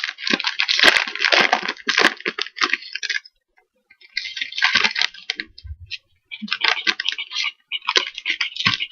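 Crinkling and rustling as a trading-card pack is opened and its cards are handled and shuffled into order, in three stretches with short pauses between them.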